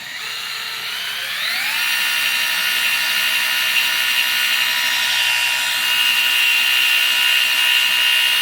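Milwaukee right-angle drill running: its electric motor whine rises in pitch over the first couple of seconds as it spins up, then holds steady.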